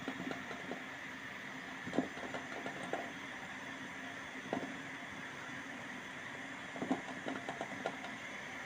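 Pot of trida pasta steaming in a couscoussier over boiling water: a steady hum with scattered soft pops and knocks, several bunched together near the end.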